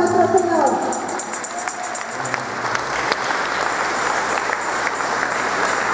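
A group singing ends about a second in and gives way to sustained applause from many people clapping.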